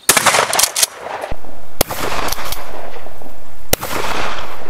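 12-gauge shotgun fired several times over a few seconds, the first shot right at the start and the others about one to two seconds apart, each a sharp loud blast.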